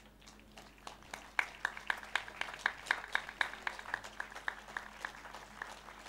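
Congregation clapping together in a steady rhythm, about four claps a second. It starts about a second in and thins out near the end.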